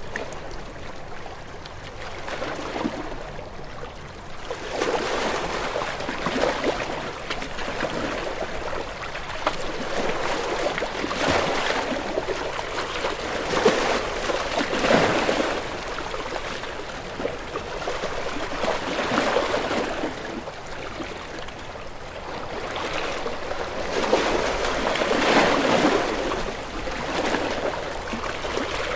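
Sea waves washing in and drawing back, each swell of water noise rising and falling over a few seconds, with a trickling wash between them.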